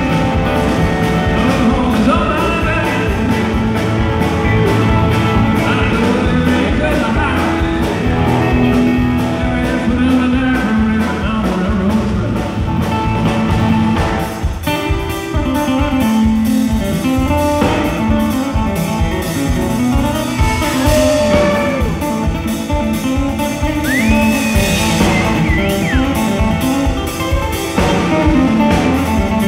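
Live country band playing at full volume: acoustic and electric guitars, pedal steel guitar, bass and drums, with a male lead vocal.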